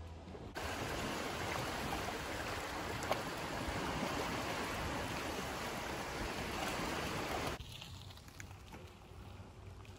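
Small waves lapping and washing against the shore, a steady rushing wash. It cuts off suddenly about seven and a half seconds in, leaving only a faint outdoor hush.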